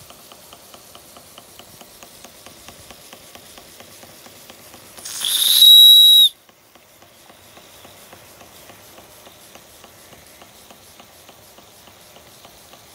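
A 1921 Empire B-30 toy steam engine running with a steady, rapid beat. About five seconds in, its brass steam whistle is opened by hand: a rising hiss of steam, then a loud, high-pitched whistle that cuts off sharply after under a second.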